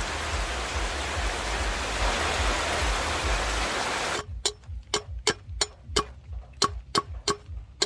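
Steady rushing like running water for about four seconds, then a run of sharp knocks, about three a second.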